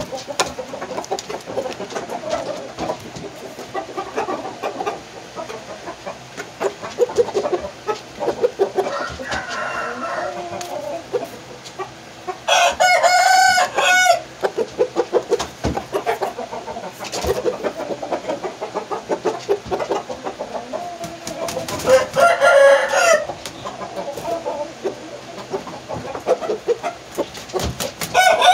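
Rooster crowing three times, about ten seconds apart, the last crow starting right at the end, with quieter clucking and scratching between the crows.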